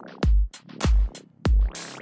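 Electronic background music with a steady drum-machine beat, a deep kick about every 0.6 seconds under hissing cymbal and swept synth sounds.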